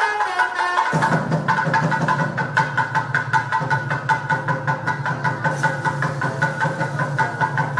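Wind-instrument music with sliding notes gives way about a second in to fast, steady temple percussion. Bells ring over an even drum beat, as heard at a temple abhishekam.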